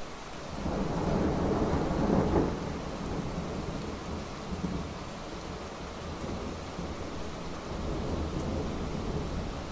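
Rain falling steadily on a paved courtyard, with a roll of thunder rumbling for about two seconds near the start and a fainter rumble later on.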